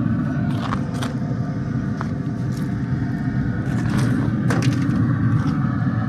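Traeger pellet smoker running with a steady low rumble and a faint hum, with a few light clicks and knocks as the venison shoulder goes onto the grate.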